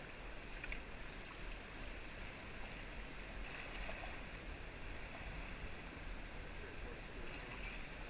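Steady rush and ripple of a shallow river current around an inflatable raft drifting downstream.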